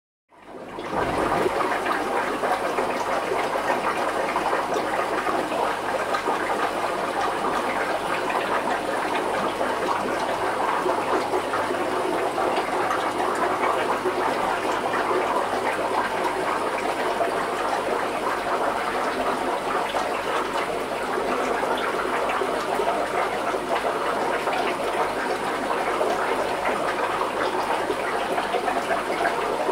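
Steady rush of running water from a fish tank's filtration system, an even, unbroken wash of sound.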